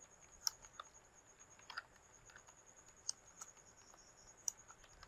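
Faint keystrokes on a computer keyboard: about nine separate clicks at an unhurried, uneven pace as a word is typed.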